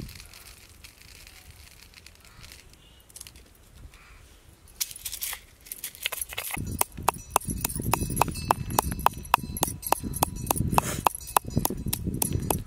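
Pestle pounding whole spices, coriander seeds among them, in a stone mortar. It starts about five seconds in and settles into a steady run of sharp knocks, about four strokes a second.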